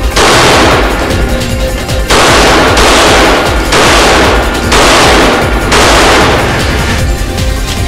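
Glock 22 .40 S&W pistol firing in about six loud stretches of roughly a second each, the shots running together, over electronic background music.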